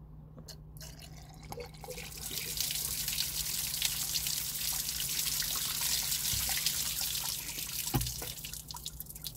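Antifreeze pouring from a jug into a MerCruiser engine's coolant-fill hose and splashing as it overflows from the open thermostat housing down the engine block, the sign that the engine is full. The pouring swells about two seconds in and tapers off near the end, with a single knock about eight seconds in.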